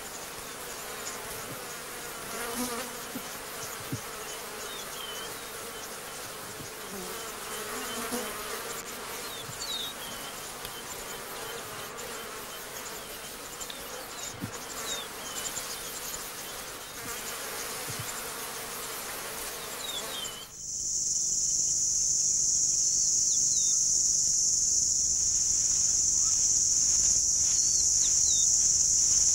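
Flies buzzing around a carcass, with scattered short chirps. About twenty seconds in, the sound changes abruptly to a loud, steady, high-pitched drone of grassland insects such as crickets.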